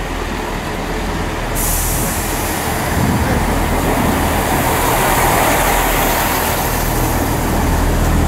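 Chiltern Railways Class 165 diesel multiple unit running into the platform and passing close by, its diesel engine drone and wheels on the rails growing louder as the carriages roll past. A sudden hiss cuts in about a second and a half in and carries on under the engine.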